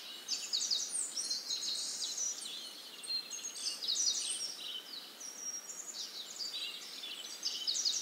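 A chorus of rainforest birds: many short, high-pitched chirps and calls overlapping one another.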